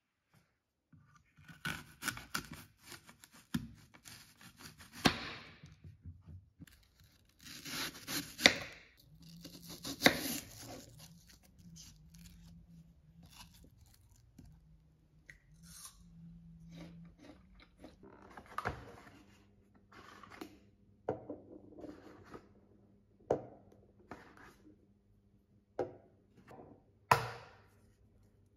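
Knife cutting apples on a wooden chopping board: crisp slicing rasps, then a series of sharp knocks of the blade against the board.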